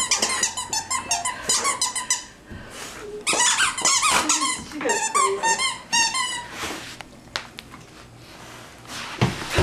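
A dog chewing a pink plush squeaky toy, setting off rapid runs of high squeaks in two bouts; the squeaking stops about six seconds in.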